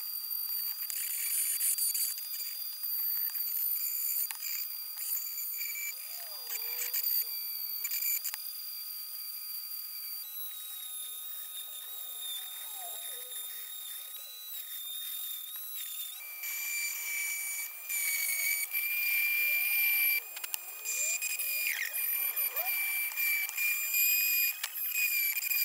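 Dremel rotary tool with a pink grinding stone whining at high speed while it grinds rust off an old steel car-horn casing, with scratchy grinding noise over the whine. The whine drops in pitch twice, about ten seconds in and again about sixteen seconds in.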